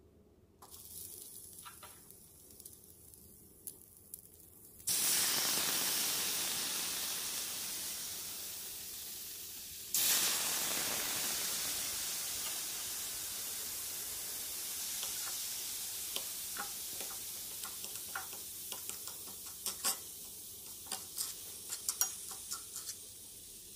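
A sizzling, frying-like hiss starts suddenly about five seconds in and slowly fades, then starts again about ten seconds in. From about fifteen seconds a metal palette knife scrapes and clicks against a small cast iron skillet as it stirs thick, softened acrylic paint.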